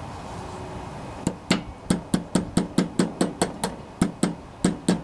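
A small hammer taps a 90-degree pick about fifteen times in quick succession, metal on metal, starting about a second in at roughly four taps a second. The pick is being driven into the old crankshaft oil seal of a Tecumseh lawnmower engine to get it out.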